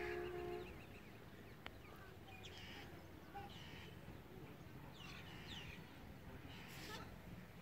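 Faint, scattered chirps of small birds over a low, steady rumble. A steady held tone with several pitches cuts off about half a second in.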